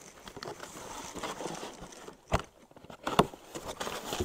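Cardboard shipping box being opened by hand: the flaps scrape and rustle, with two sharp snaps about two and three seconds in.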